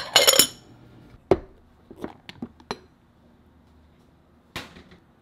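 Dishes and glassware being handled: a ringing clatter of glass or ceramic at the start, then a few separate knocks and clinks, the last one near the end.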